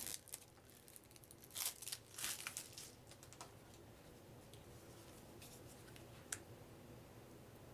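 Soft crinkling and rustling as a deck of playing cards and its packaging are handled and opened, in short bursts of a second or so, with a single sharp click about six seconds in.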